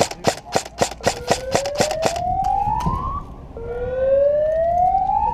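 Rapid airsoft gunfire, about four sharp shots a second, which stops about two seconds in. From about a second in, a siren rises slowly in pitch, drops back and rises again.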